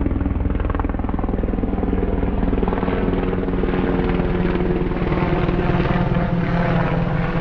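An engine running steadily and loudly, with a fast even pulsing throughout.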